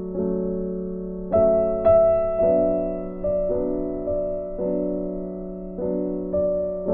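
Background piano music: slow, gentle notes struck one after another and left to ring.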